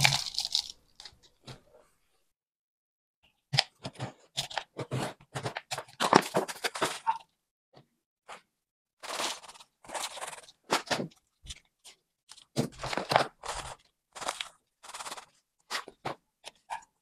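Loose potting mix crunching and scraping as it is handled and poured from a paper pouch into plastic plant pots. It comes in short, irregular bursts with brief pauses.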